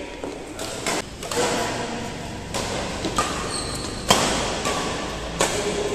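Badminton rally: a string of sharp racket strikes on the shuttlecock, mixed with players' footfalls on the court, echoing in a large hall. The loudest strike comes about four seconds in.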